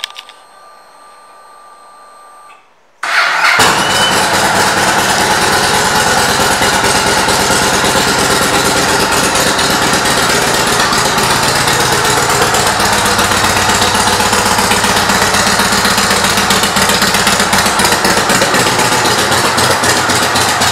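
A 2009 Yamaha Road Star S V-twin fires up through its Cobra aftermarket exhaust about three seconds in, then runs at a steady idle.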